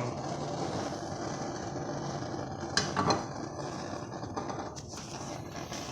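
Pan and utensils clattering on a stovetop while butter melts in the pan. There are a couple of sharp knocks about three seconds in and a few lighter ones near the end, over a steady hiss.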